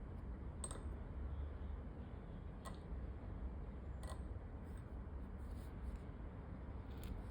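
Calligraphy pen nib scratching across paper in short, separate strokes, over a low steady hum.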